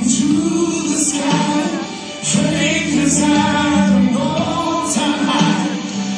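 Gospel song with a choir singing held notes over instrumental backing.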